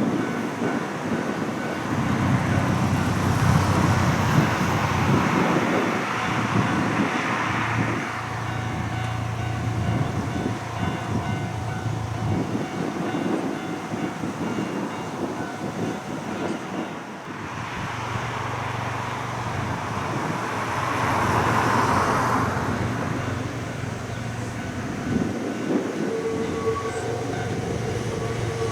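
Iga Railway electric train running past on the line, a loud rolling noise with a steady low motor hum that swells twice. Steady tones come in near the end.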